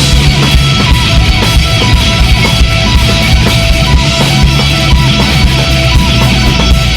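Live rock band playing an instrumental passage with no vocals: drum kit, electric guitars and bass, loud and driving.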